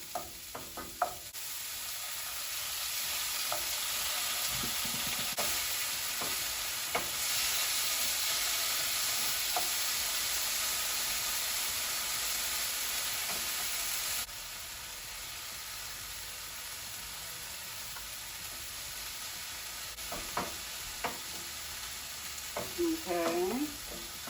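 Vegetables sautéing in hot oil in a non-stick frying pan: a steady sizzle with a few light taps of a utensil stirring. About fourteen seconds in, the sizzle suddenly drops to a quieter, steady level.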